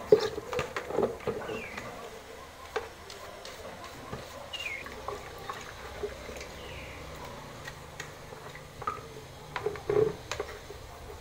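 Plastic paint pail being handled and the paint stirred with a stick: scattered knocks and light scraping, busiest in the first second and again near the end, with a few short high squeaks in between.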